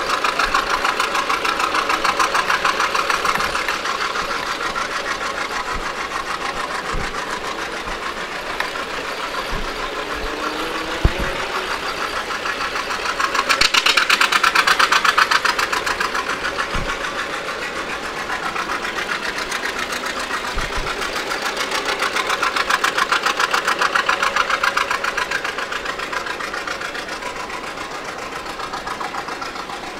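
An engine idling with a fast, even knocking beat, getting louder twice along the way, with one sharp knock near the middle.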